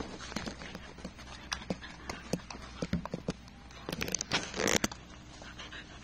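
A large dog and a kitten play-wrestling on a tatami mat: soft scuffling and pattering of paws with quick scratchy taps, and a short rough breathy burst about four and a half seconds in.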